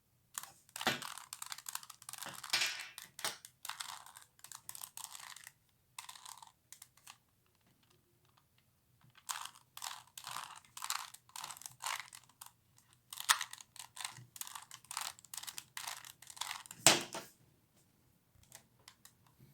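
Plastic 3x3 Rubik's Cube layers being turned by hand: quick runs of clicking, rasping twists, with a pause of about two seconds in the middle and a sharper knock near the end.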